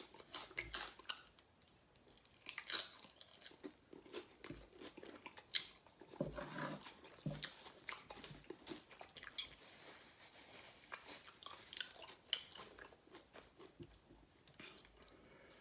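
Close-up mouth sounds of crunching and chewing spicy tortilla chips, Flamin' Hot Nacho Doritos and Hot'N Spicy On the Border nacho chips eaten together: quiet, irregular crackles and crunches.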